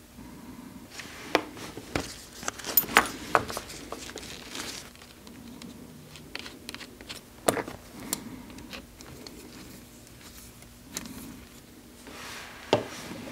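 Hands handling a leather belt's brass buckle and Chicago screws at a workbench: scattered light clicks, taps and small metal clinks. They are busiest in the first few seconds, with a sharper knock about halfway and another near the end.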